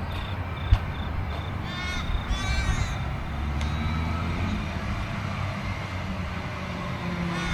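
A crow gives two harsh caws about two seconds in, over a steady low rumble. Before the caws there is a row of short, high, evenly spaced beeps.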